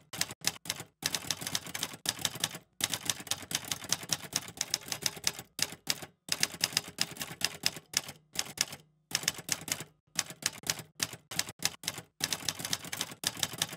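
Old manual typewriter with round keys being typed on: quick runs of key strikes broken by short pauses.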